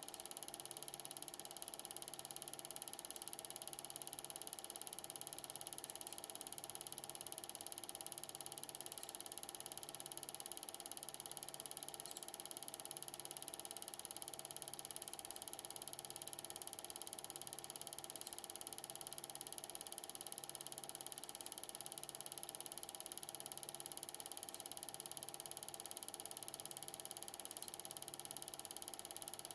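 Standard 8mm cine projector running: a steady mechanical whir with a soft low pulse repeating a little under once a second.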